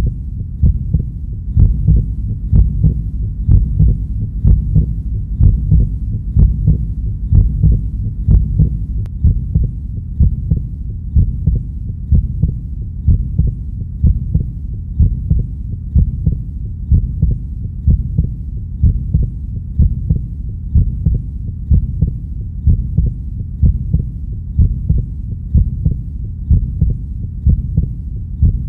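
Recorded heartbeat sound playing as a slow, steady pulse, about one beat a second, over a constant low hum.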